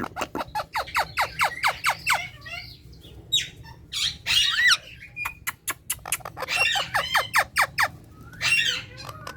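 Indian ringneck parakeet squawking and chattering: rapid runs of short, sharp calls, several a second, broken by longer warbling calls about four seconds in and near the end.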